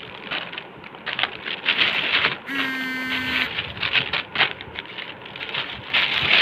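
Thin plastic carrier bag rustling and crinkling as snack packets are handled and pulled out of it. About two and a half seconds in, a steady pitched tone sounds for about a second.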